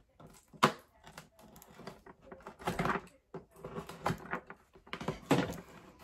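Handling noise from a boxed plastic bead storage tray set: a sharp knock just over half a second in, then several rustles and scrapes of the box and its contents.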